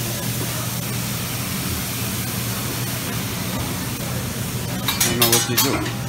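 Restaurant buffet room tone with a steady low hum, and a brief clatter of tableware about five seconds in.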